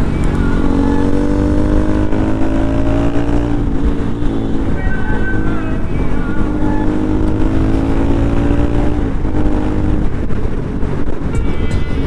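Kawasaki Z900's inline-four engine through its stock exhaust, pulling hard twice: the pitch climbs for about three seconds, falls away, then climbs again and falls away near the end.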